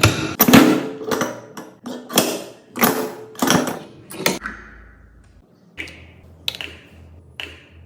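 A run of mechanical clacks and knocks, several a second, then three lighter sharp clicks near the end.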